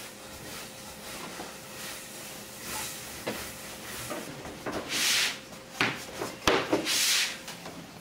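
Long wooden rolling pin rolling and pressing over buckwheat soba dough on a wooden board: a soft rubbing swish, with louder sweeping strokes and a couple of sharp wooden knocks in the second half.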